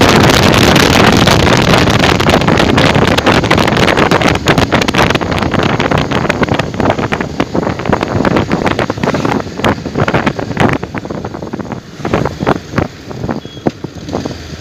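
Wind buffeting the microphone on a moving Bajaj Pulsar 150 motorcycle. It is a loud, dense rush for the first few seconds, then breaks into irregular gusts that grow quieter toward the end.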